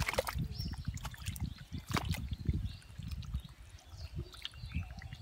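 Shallow muddy water splashing and sloshing as it is scooped with a metal bowl and stirred by hands groping through the mud, with irregular slaps and a sharper splash about two seconds in.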